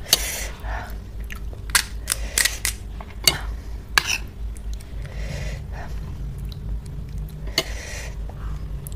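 Pani puri being eaten: crisp fried puri shells crunching and cracking as they are bitten and chewed, with irregular sharp crackles between softer chewing.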